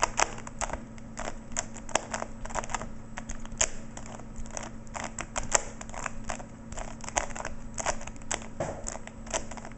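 Rubik's Cube being scrambled by hand: its plastic layers are turned in quick, irregular clicks, a few each second.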